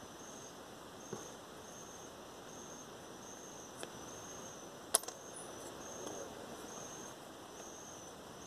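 Faint, steady insect chirring: a high-pitched trill pulsing on and off a little more than once a second. A sharp click about five seconds in, with two fainter ones earlier.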